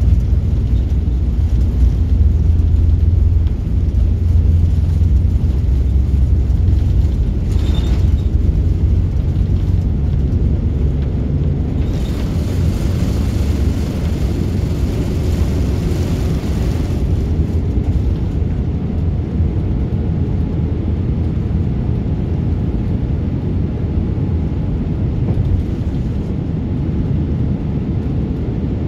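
Cabin noise of a Boeing 787 Dreamliner on takeoff and initial climb: a loud, steady deep rumble of the engines and airflow, heaviest for the first four seconds. A brief knock comes about eight seconds in, and a louder hiss is laid over the rumble from about twelve to seventeen seconds in.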